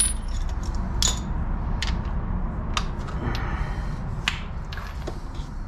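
Scattered metallic clicks and clinks of a 17 mm wrench or socket working a bolt on a truck's front suspension, roughly one a second, over a steady low hum.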